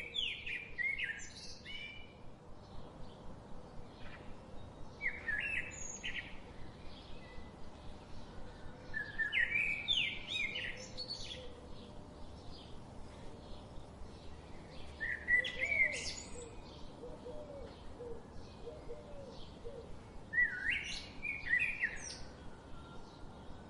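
Bird song: short, high warbled phrases repeated about every five seconds, with softer, lower calls in between.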